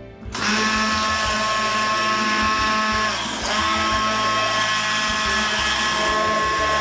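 Electric immersion hand blender running in a stainless steel bowl, beating water, oil and vinegar together: a steady motor whine that starts about half a second in, dips briefly about three seconds in, then runs steadily again.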